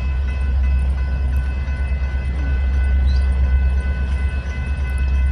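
Union Pacific coal train's diesel locomotives running, a heavy, steady low rumble with a faint high whine above it.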